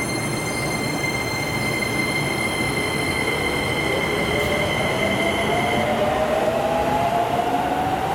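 Hokuso Railway 7500-series electric train pulling out of an underground station. The inverter and traction motors give a steady high-pitched whine that fades out about six seconds in, while a lower whine climbs in pitch as the train picks up speed, over the rumble of the wheels echoing in the tunnel.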